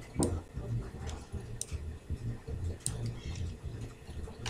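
A few sharp, separate clicks of a computer mouse over a low hum.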